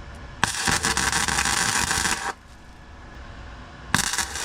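MIG welder arc crackling in two short bursts of welding on the car's thin sill steel, the first about two seconds long and the second starting near the end; during the second the weld burns straight through the thin metal.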